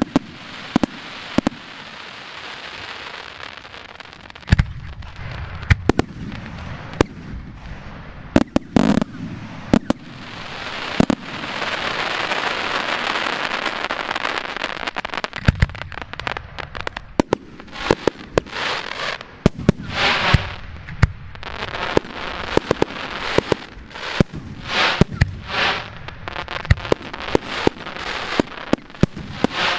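Professional fireworks display heard from about 300 m away: aerial shells bursting with sharp bangs throughout. A dense crackling stretch runs through the middle, followed by a rapid run of pulsing bursts and reports.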